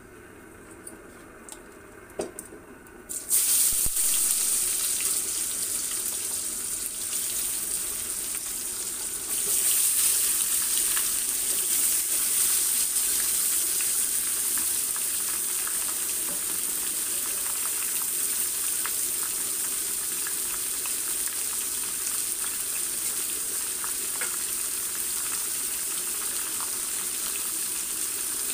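Marinated duck meat tipped into hot oil and whole spices in a kadai. After a few light clicks, a sudden loud sizzle starts about three seconds in and carries on as a steady frying hiss, which grows louder again near ten seconds in.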